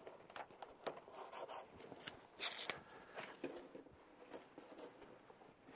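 Quiet handling clicks and rustles, with one short hiss of an aerosol spray-paint can about two and a half seconds in.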